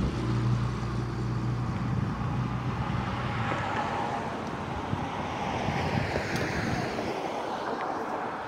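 Road traffic passing on the street, a vehicle's noise swelling and fading, with wind buffeting the microphone.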